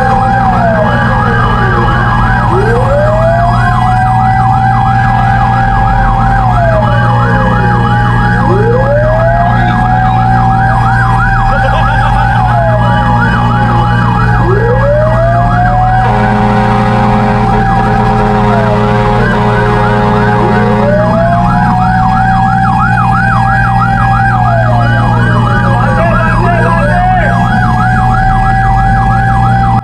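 Two fire truck sirens sounding together. One is a slow wail that climbs quickly, holds and slides back down about every six seconds. The other is a fast yelp sweeping up and down a few times a second, both over a steady low drone.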